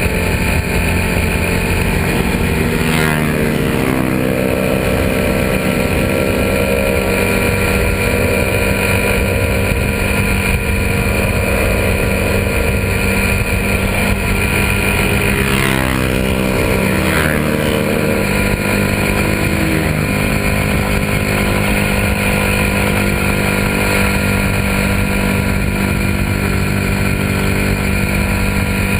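Single-cylinder engine of a Suzuki Raider 150 motorcycle running at road speed, heard from on the bike with steady wind rush. Its note shifts about three seconds in and again a little past halfway, as the throttle or gear changes, then holds steady.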